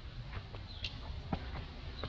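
Outdoor ambience: a steady low rumble with a few light ticks and a short high chirp about a second in.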